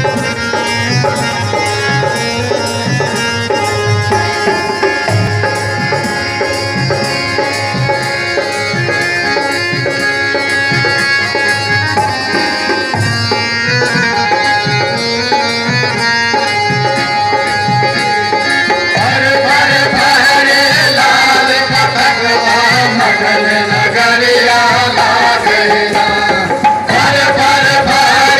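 Live Indian folk song: a harmonium holds steady notes over a repeating hand-drum rhythm, and from about 19 seconds in a group of men's voices starts singing over it through the microphones.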